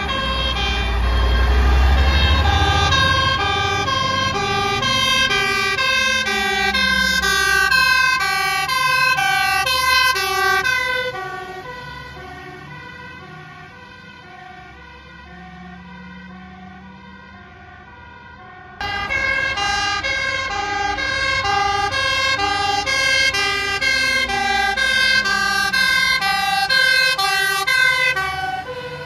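Fire engines passing with two-tone sirens wailing, their two pitches alternating over and over above diesel engine noise. The sirens fade as the trucks drive off, then come back suddenly loud about two-thirds in and fade again near the end.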